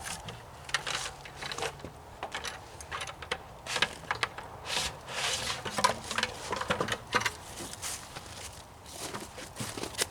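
Footsteps through wet, melting snow: an uneven series of short crunching steps.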